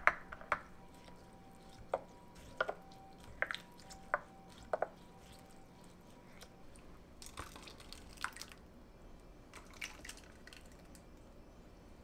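A wooden spoon stirring a soy-sauce marinade in a glass measuring cup, knocking against the glass about seven times in the first five seconds; the glass rings briefly after the knocks. Later come softer, wet scraping and pouring sounds as the marinade is poured and spooned out of the cup.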